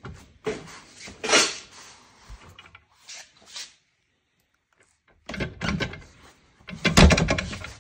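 Home-built steel swing-out tire carrier arm being swung and closed against the rear barn door, its pivots and rod-end link clunking and rattling in several bursts, with a short pause in the middle and the loudest clatter near the end. The rattle comes from everything still being a little loose, with no rubber bump stop fitted yet to hold the closed position.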